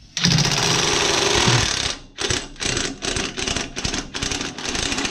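Impact wrench hammering on a bolt: one long run of about two seconds, then a string of short bursts.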